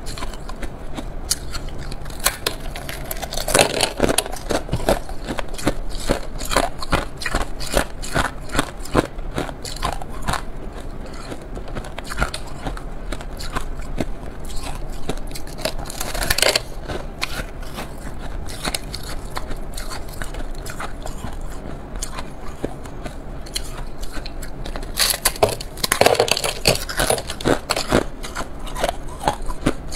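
Shaved ice being bitten and chewed: a continuous run of crisp crunches and crackles, with denser bursts of crunching about four seconds in, around the middle, and a few seconds before the end.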